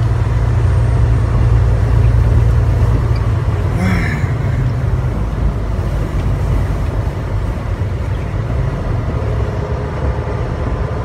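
Steady low engine and road noise heard inside a moving truck's cab, easing slightly towards the end.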